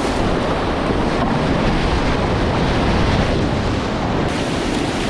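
Whitewater rapids rushing steadily and loud, close to the microphone, with wind buffeting it.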